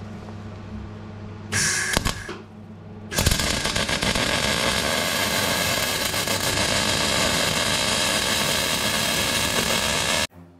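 MIG welding arc on steel box-section tube. It gives a short burst about one and a half seconds in, then a steady crackling weld run of about seven seconds that cuts off abruptly near the end. A steady low hum lies under the opening second and a half.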